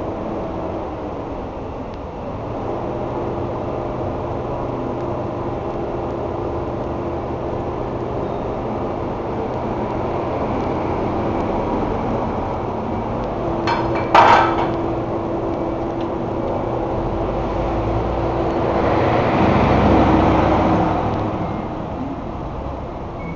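Electric arc welding on a crack in a motorcycle's muffler end: a steady buzzing hum while the arc burns, cutting out shortly before the end. There is a sharp knock about 14 seconds in, and a rush of noise swells and fades near the end.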